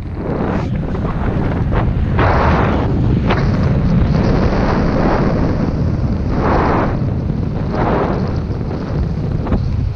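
Airflow rushing over the microphone of a paraglider pilot's camera in flight: a steady low buffeting rumble that swells in gusty surges several times.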